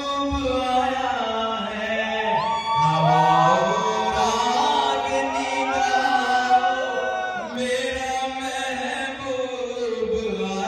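A man singing into a microphone over the hall's sound system, holding long notes, with music behind him. In the middle several held tones overlap and slide into pitch.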